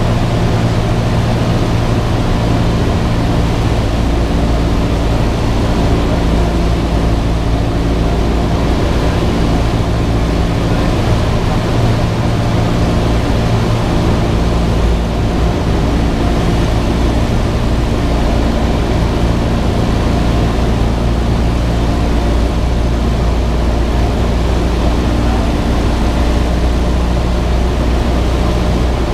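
Cessna 172's piston engine and propeller running steadily, a loud drone with a noisy rush over it. The engine's pitch shifts slightly a few times as the power changes.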